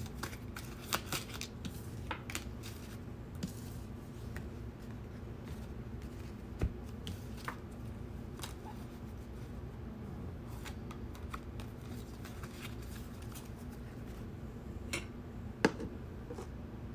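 A deck of tarot and oracle cards being handled and shuffled: quick papery flicks and snaps, thickest in the first few seconds, then scattered taps, with one sharper tap near the end. A faint steady room hum runs underneath.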